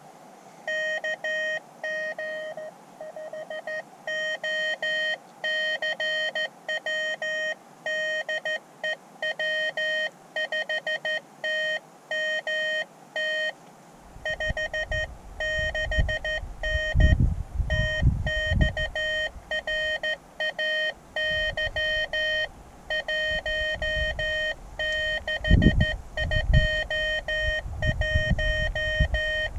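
Morse code (CW) from a portable ham radio transceiver: a steady tone of about 600 Hz keyed on and off in dots and dashes while a contact is worked. About halfway through, low rumbling bursts join in.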